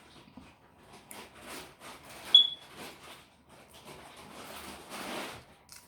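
Close-up eating sounds of boiled shrimp being chewed and sucked, a run of soft wet mouth noises, with one brief sharp high squeak about two seconds in.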